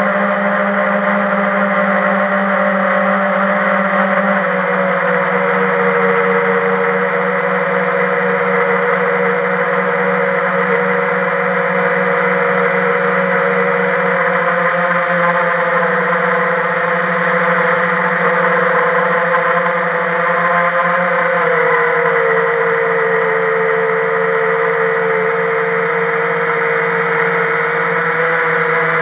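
Quadcopter's electric motors and propellers whirring steadily, heard from a camera mounted on the craft, over a rush of air. The whine dips slightly in pitch a few seconds in and again about two-thirds of the way through.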